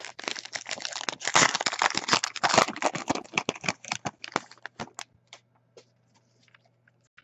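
Baseball card pack wrapper crinkling and cards being handled and shuffled: dense crackly rustling for about five seconds, then only a few scattered light ticks.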